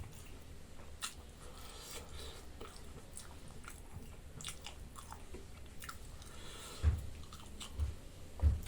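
A person chewing and eating a mouthful of dal bhat close to the microphone, with scattered small wet mouth clicks. A few low thumps come near the end.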